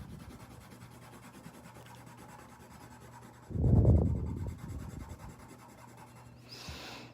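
Colouring tool rubbing back and forth across paper while a drawing is filled in with a pale yellow, with a louder spell of strokes about halfway through and a short hiss near the end.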